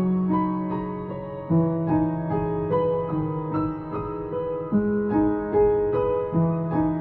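Background music: a gentle piano piece, with notes struck about twice a second over a held bass note.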